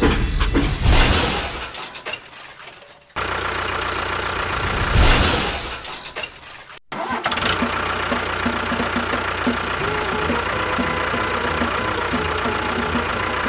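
An engine or motor running with a steady hum, swelling briefly twice. It is cut off abruptly twice by edits and resumes straight away each time.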